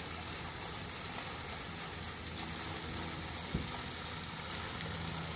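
Steady rush of running water, an even hiss with no change through the stretch.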